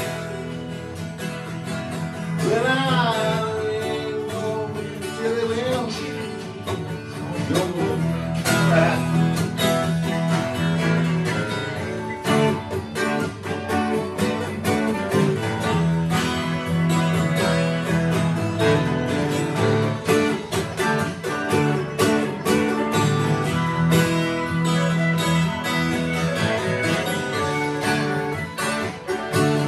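Acoustic guitar strummed steadily through an instrumental passage of a country/bluegrass-style song, with a bending lead line a few seconds in.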